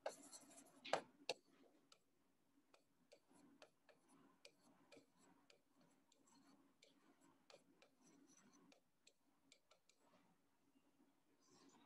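Faint taps and scratches of a pen writing on an interactive whiteboard screen, a few sharper clicks in the first second or so and then scattered light ticks. A faint steady hum lies underneath.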